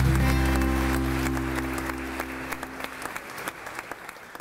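Audience applauding over music that holds a sustained low chord; both fade out toward the end.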